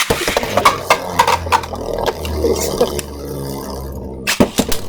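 Beyblade Burst spinning tops, Hero Samuraizor against Bushin Ashura, whirring and clashing in a plastic stadium: a rapid run of sharp clacks over a steady low whir. The sound stops briefly near the end, then a few more clacks follow.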